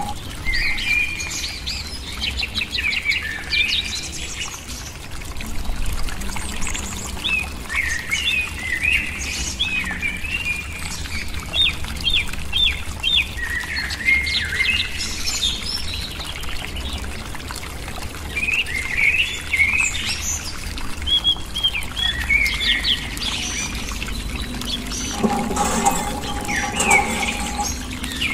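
Small birds chirping and trilling in quick, repeated phrases, over a steady low rumble; a lower pitched sound joins near the end.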